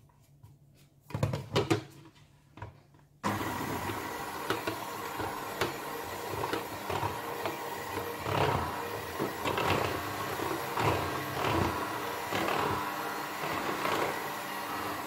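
A few light knocks, then about three seconds in an electric hand mixer switches on and runs steadily, its twin beaters whisking flour into the egg-and-mayonnaise batter.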